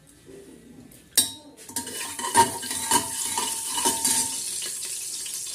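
A steel spatula knocks sharply against a pressure cooker about a second in, then clinks and scrapes inside it while the hot cooking oil hisses steadily.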